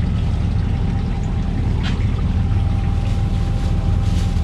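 Boat engine idling: a steady low drone with a faint constant whine above it, and a couple of soft knocks.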